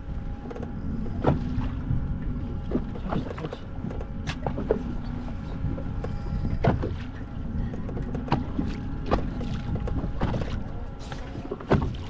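Water slapping and sloshing against the hull of a small fishing boat drifting on a light chop, with a steady low rush underneath and a faint steady hum. Sharp knocks and slaps come at irregular moments, about ten in all.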